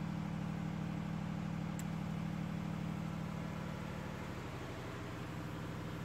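A steady low mechanical hum with a fine rapid pulse, like an engine running, easing a little in the second half.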